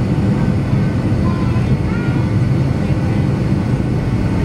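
Steady low rumble of a jet airliner's engines heard from inside the passenger cabin while the plane taxis, with faint passenger voices under it.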